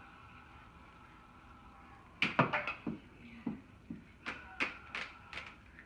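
Hard plastic toy scoops knocking and clattering: a run of about ten sharp knocks starting about two seconds in, some coming in quick pairs.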